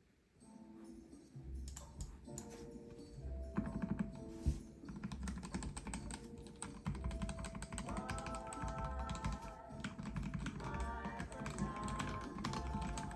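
Fast typing on a Melgeek Mojo68 mechanical keyboard with Gateron Pro Yellow linear switches in its see-through plastic case: a dense stream of rapid keystroke clacks. Background music plays along with it.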